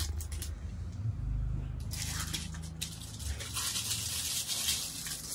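Scratchy rustling of denim jeans being handled and laid out, thickening about two seconds in, over a low steady hum.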